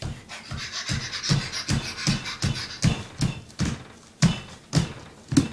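A small child stomping in a dance in oversized orange boots on a hard floor, a steady run of thumps about two and a half a second.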